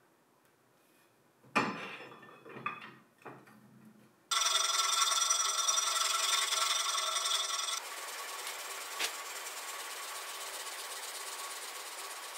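A few sharp knocks, then a power tool starts abruptly about four seconds in and runs steadily with a whine of several pitches. A few seconds later it drops to a quieter steady run.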